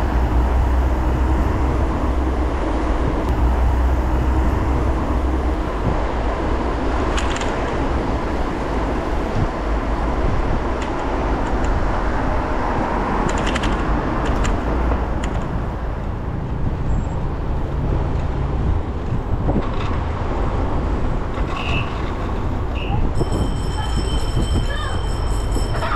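Wind rumble on the microphone and road noise from a moving bicycle, with passing traffic and a few brief knocks. Near the end a bicycle bell rings for a couple of seconds, a thin, high ringing.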